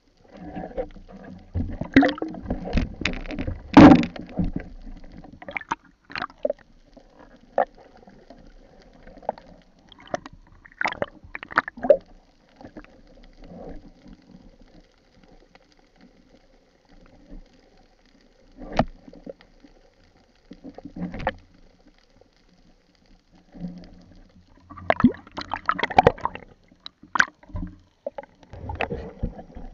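Underwater sound from a speargun-mounted camera: irregular sharp clicks and knocks of gear handling, over a low rushing, gurgling water sound. The knocks crowd together in the first few seconds, with the loudest about four seconds in, thin out in the middle, and crowd again near the end.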